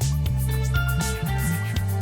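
Background music with a steady beat: a bass line, held melody notes and a light percussion pattern.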